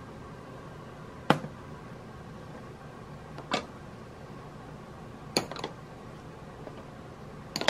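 Glass pudding cups being set down one after another on a tray: four sharp clinks about two seconds apart, the third with a lighter second knock just after it. A steady faint hum runs underneath.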